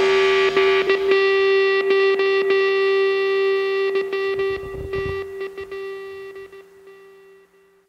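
Rock soundtrack ending on a distorted electric guitar note that rings on and slowly fades out to silence near the end.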